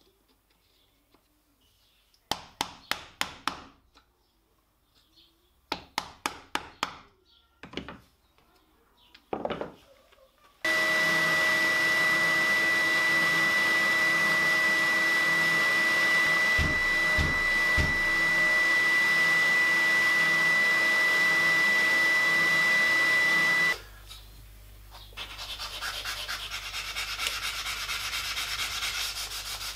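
Wooden mallet tapping a punch or chisel to break CNC-cut plywood letters free of their holding tabs: two quick runs of about six blows, then two single blows. Then an oscillating spindle sander runs with its dust extractor for about thirteen seconds, a steady loud noise with a high whine, and stops abruptly. After that, quieter hand sanding of the plywood letters with a sanding block.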